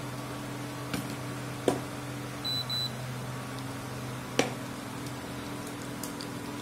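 Induction cooktop humming steadily under the faint sizzle of ivy gourd deep-frying in oil. A wire skimmer clinks against the iron kadai three times, and two short high beeps sound about two and a half seconds in.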